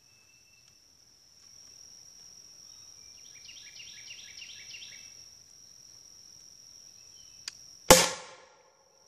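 Homemade PVC shoulder-mounted rocket launcher firing near the end: a sharp click, then a sudden loud blast as its gun cotton (nitrocellulose) charge ignites and launches a cardboard rocket, dying away within about a second. Before the shot, a steady high insect drone, with a short run of chirps in the middle.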